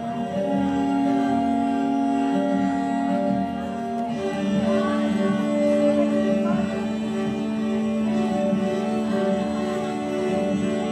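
Background music with long held notes, likely bowed strings with a voice-like line; the melody shifts to a new held note about four seconds in.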